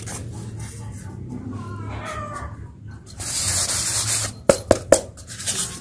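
Styrofoam block and paper cutouts handled and rubbed, making a noisy rustling scrape about three seconds in, followed by a few quick sharp taps.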